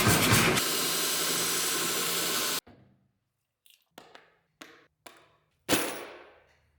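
A loud workshop power tool running, first pulsing and then steady, cut off abruptly about two and a half seconds in. Then a handful of short, sharp knocks or clinks, each dying away, the last and loudest just before the end.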